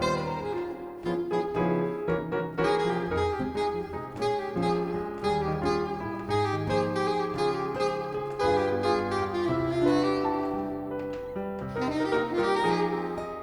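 Soprano saxophone playing a jazz melody line over piano accompaniment, with held notes over changing low chords.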